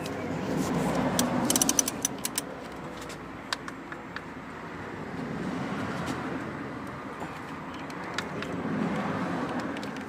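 Light metallic clicks and clinks of a 13 mm spanner working a car's drive belt tensioner, with a quick run of clicks about two seconds in. Underneath, a background rush swells and fades three times.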